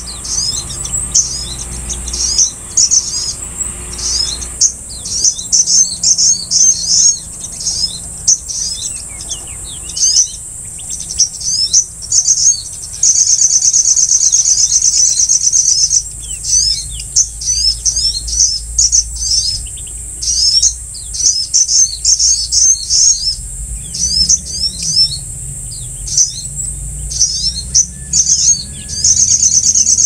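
Many small birds chirping in rapid, short, overlapping calls over a steady high-pitched insect drone. A dense cricket-like trill breaks in at the start, again for a few seconds about halfway, and near the end.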